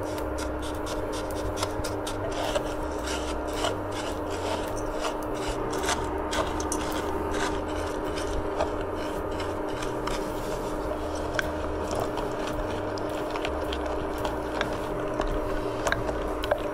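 Wooden spatula stirring and scraping granulated sugar around an enamel saucepan as it melts into dry caramel: a gritty rasp with many small clicks of the spatula against the pan, over a steady hum.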